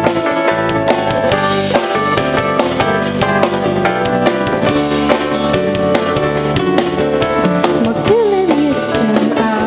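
Live band playing an instrumental passage of a pop song: keyboards and electric guitar over a steady drum beat. A woman's singing voice comes in near the end.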